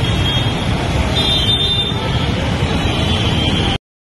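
Steady, loud rumbling din of road traffic, with no voices, cut off abruptly near the end.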